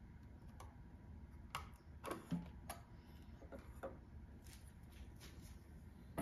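Faint light taps and clicks of a metal periphery outer ring and a flat guide plate being set down around a turntable platter, with a soft knock about two seconds in.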